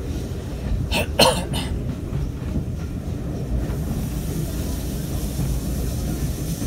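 Steam-hauled heritage railway carriage running along the line, heard from inside as a steady low rumble. Three short, sharp sounds come close together about a second in, and a faint high hiss comes in from about the middle on.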